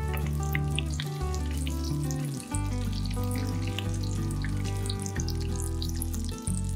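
Potato fritters shallow-frying in hot sunflower oil, sizzling with scattered crackles and pops, over steady background music.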